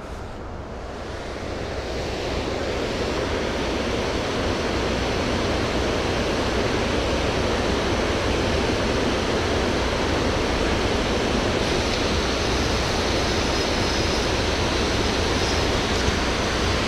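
Water pouring over a dam's spillway gates: a steady, even rush of falling water that swells over the first few seconds and then holds.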